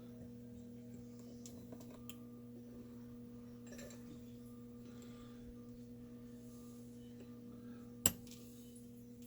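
Steady electrical hum with a few faint ticks of small metal parts being handled, and one sharp click a little after eight seconds in.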